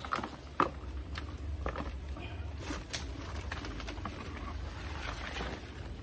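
Scattered knocks, clicks and rustles of hands working a plant and an old tree stump, with one sharp knock about half a second in, over a steady low rumble.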